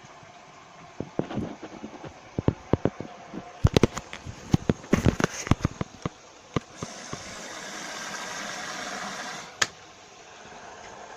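Bosch WMV 1610 washing machine with an empty drum in its final spin programme: a string of irregular clicks and knocks, then about three seconds of steady hiss that ends in one sharp click.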